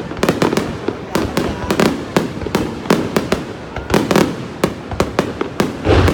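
Aerial fireworks bursting overhead: a rapid, uneven series of sharp bangs, several a second.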